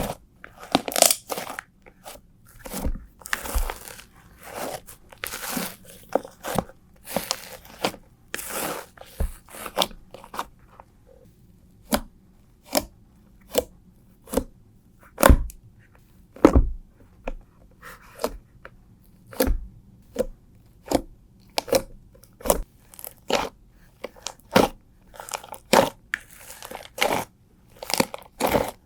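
Fluffy shaving-foam slime being handled, with crackling squishes at first, then separate sharp sticky pops about one or two a second from around ten seconds in.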